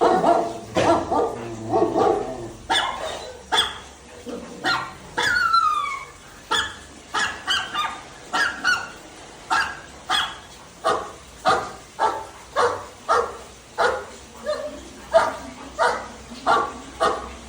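Labrador retriever barking in a long run of short barks, about two a second in the second half, with a high falling yelp about five seconds in.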